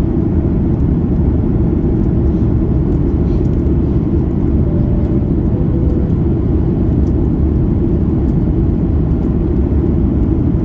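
Steady low cabin noise inside a Boeing 737 MAX 8 descending: airflow over the fuselage mixed with the hum of its CFM LEAP-1B engines, at an even level throughout.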